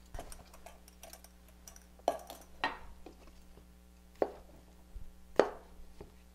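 Kitchen knife cutting through a peeled cucumber, the blade knocking on the cutting board about four times at uneven intervals, the last knock the loudest.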